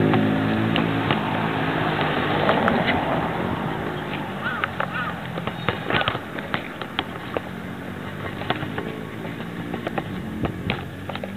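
Riding noise from a bicycle on a street: frequent clicks and knocks from the bike and handheld camera over the steady hum of a motor vehicle's engine, loudest at the start and fading. A couple of short squeaks come about five seconds in.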